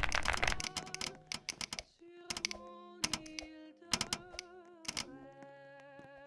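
Rapid keyboard key clicks that thin out after about half a second into a few scattered single key presses. Under them run held musical notes, some with a slight wobble.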